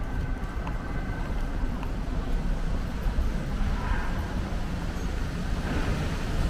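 Steady low rumble of outdoor city ambience, with distant traffic and a few faint ticks.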